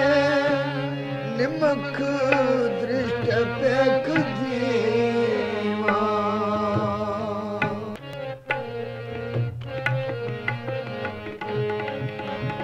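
Sikh kirtan music: tabla playing under steady held harmonium notes, with a voice's wavering sung notes in the first few seconds.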